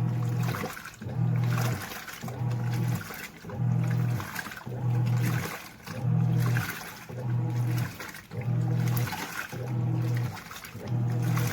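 Giantex portable washing machine agitating: its motor hums in short strokes about once a second, pausing between each as the wash action reverses, with water sloshing in the tub.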